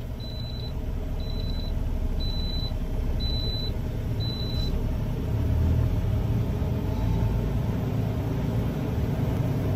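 Steady low rumble of a semi-truck cab with its diesel engine running. Over it, a high in-cab warning beeper sounds in short beeps about once a second, five times, then stops about five seconds in.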